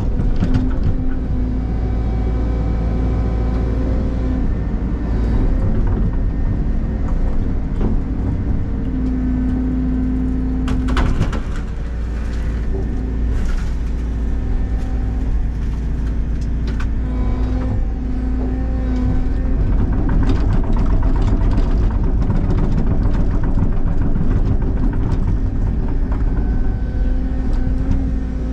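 Caterpillar excavator's diesel engine running under hydraulic load, a steady low rumble with a hum that comes and goes as the machine works. A few sharp cracks or knocks about eleven and fourteen seconds in.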